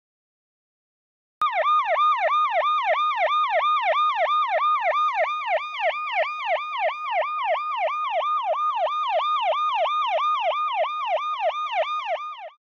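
Emergency vehicle siren in a fast yelp, its pitch sweeping down and back up about three times a second. It starts about a second and a half in and stops just before the end.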